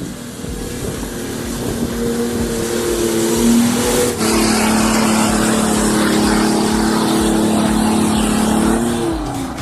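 Off-road 4x4's engine revving hard under load: the pitch climbs over the first few seconds, holds high for about five seconds over a steady rush of noise, then drops near the end.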